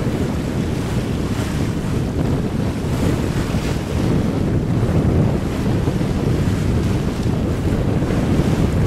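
Wind buffeting the microphone, a steady low rumble, over the wash of choppy waves on open water.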